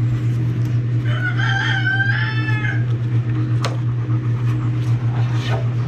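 A rooster crowing once, about a second in: one call in two parts lasting nearly two seconds. A steady low hum runs underneath, with a couple of faint clicks later on.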